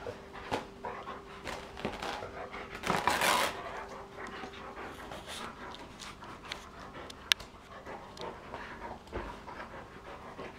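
Brown Doberman panting as it tugs and shakes a cloth in its mouth, the fabric rustling and dragging over the mat. A louder rustle comes about three seconds in, and a single sharp click about seven seconds in.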